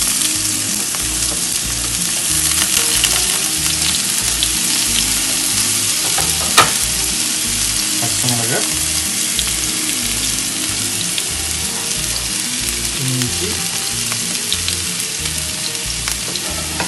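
Chopped red onion sizzling in hot oil in a frying pan, a loud, even sizzle. A single sharp tap about six and a half seconds in.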